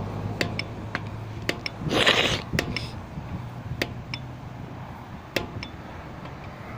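Bicycle tyre being inflated with a station-mounted floor pump: scattered metallic clicks and clinks from the pump and its fittings, and one short hiss of air about two seconds in. A low hum of freeway traffic sits underneath, fading after a few seconds.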